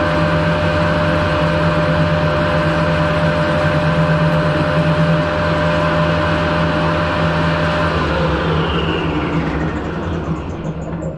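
Metal lathe running steadily with a cast hand wheel spinning in its chuck. About 8 s in it is switched off, and the pitch falls as the chuck spins down.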